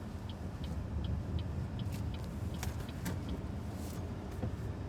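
Steady low road rumble inside the cabin of a BYD Seagull electric car on the move, with a train of faint, regular ticks and a few sharp clicks.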